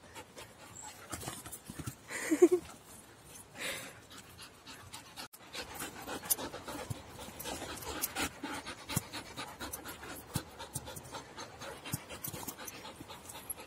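A dog panting hard close by, in quick, irregular breaths.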